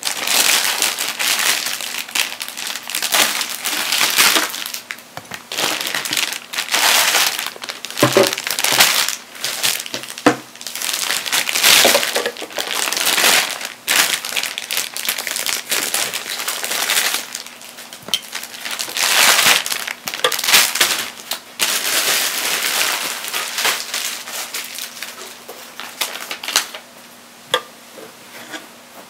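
Thin plastic bags crinkling and rustling in long irregular bursts as they are snipped with scissors and pulled off two tail light assemblies, with a few light clicks near the end as the plastic housings are handled.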